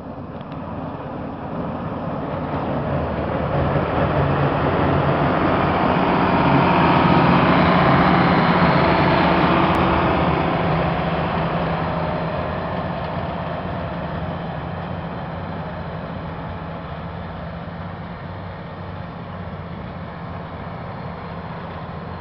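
International Harvester 1586 tractor's six-cylinder diesel engine running under load as its front-mounted nine-foot dual-fan snowblower throws snow, a steady engine hum under a rushing noise. The sound grows louder as the tractor comes close, is loudest about a third of the way in, then fades as it moves away.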